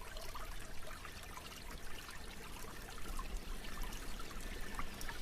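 Campfire crackling: a steady hiss scattered with many small pops.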